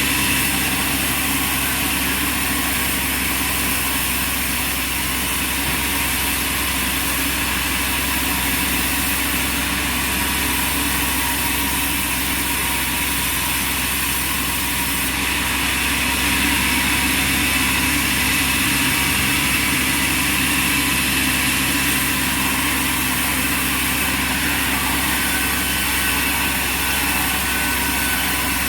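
Band sawmill machinery running steadily, a continuous motor hum with an even mechanical noise.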